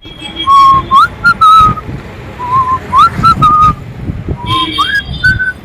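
A man whistling a short tune through pursed lips: the same little phrase three times, a held note, a quick upward slide, then higher held notes, over a low background rumble.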